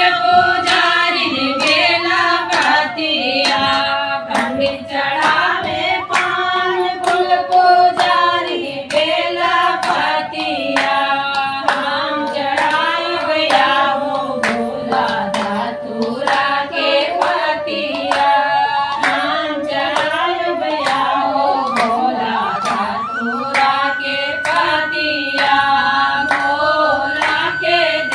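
A group of women singing a Bhojpuri Shiva bhajan together, keeping time with steady hand-clapping at about two claps a second.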